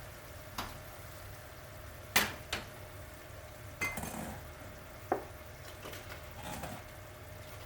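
Cooking utensil clinking and knocking against a pan while stirring, about seven separate strikes, the loudest about two seconds in, over a steady low hum.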